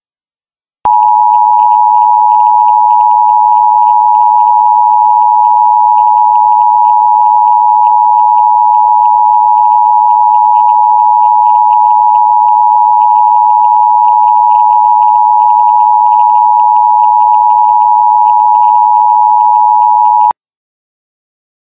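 A loud, unbroken, mid-pitched electronic tone, like a telephone dial tone or test tone, over a faint hiss. It starts abruptly about a second in and cuts off suddenly near the end.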